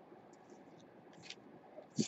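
Faint clicks and scrapes of stiff acetate trading cards being handled and slid against one another, with a sharper click near the end.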